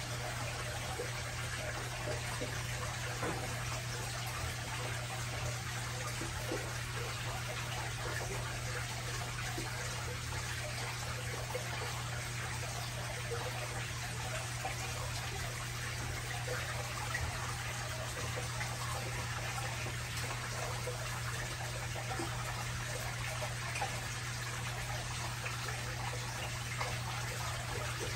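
Aquarium filter running: a steady trickle of water over a constant low hum.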